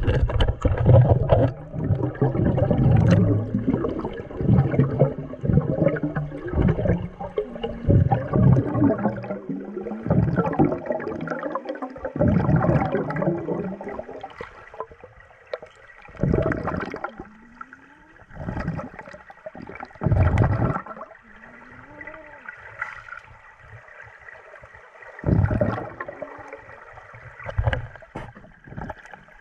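Pool water sloshing and gurgling around a camera held underwater beside a swimmer doing breaststroke. It is busiest in the first half; after that it goes quieter, broken by a few surges of churning water, with faint wavering tones in between.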